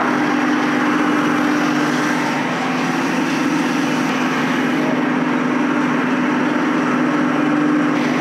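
MultiSaw ELE640 board edger and multi-rip saw, with its 30 kW saw motor, running at full speed. It makes a loud, steady machine noise with a constant hum.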